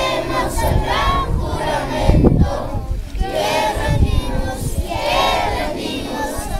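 A large group of children singing together in unison, with some adult voices mixed in.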